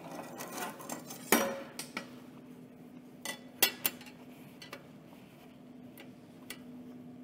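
Steel tubing being set in place and squared up on a steel welding table: several sharp metal clinks and knocks, the loudest about a second and a half in, over a faint steady hum.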